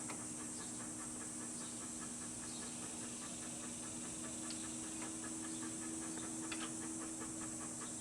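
Quiet background: a steady low hum and a high hiss, with a few faint small clicks.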